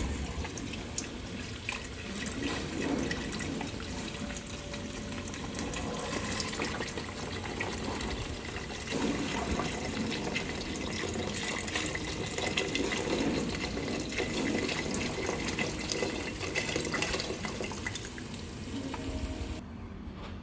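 Kitchen tap running steadily into a sink, a continuous hiss with small splashes and clatter, cutting off abruptly near the end.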